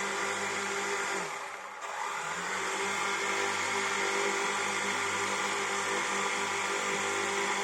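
Quadcopter drone's electric motors and propellers whining steadily. A little over a second in the pitch slides down and the sound dips briefly, then it climbs back to the same steady whine, as the motors throttle down and up again.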